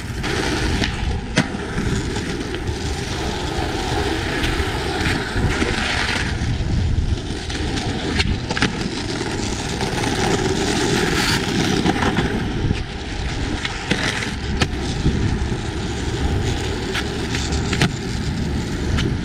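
Skateboard wheels rolling over rough asphalt and brick pavers with a steady gritty rumble. Sharp wooden clacks of the board popping and landing from flatground tricks come several times.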